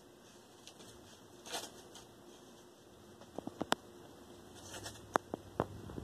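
A cat biting and tearing at a sheet of paper: a brief rustle of paper about a second and a half in, then sharp crackles and snaps in two short clusters in the second half.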